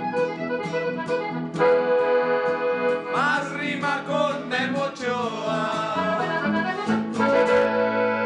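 Accordion-led corrido music over a steady bass line, with a quick wavering run in the middle.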